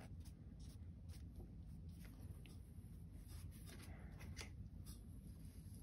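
Near silence with faint scattered ticks and light scratching of a watercolour brush working on paper, over a low steady room hum.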